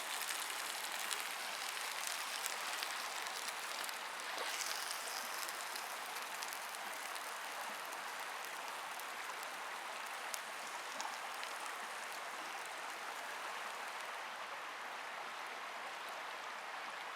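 Food sizzling in a cast iron pan over a campfire: a steady hiss with small pops and crackles scattered through it. It cuts off suddenly at the end.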